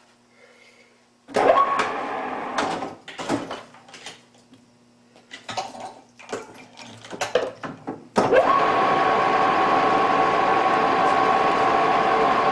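Metal lathe: a loud clunk about a second in, then scattered knocks and rattles, and about eight seconds in the spindle starts and runs steadily with a steady gear whine.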